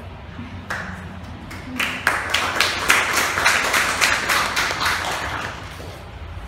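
Audience applauding: clapping begins about two seconds in, swells, and fades out before the end.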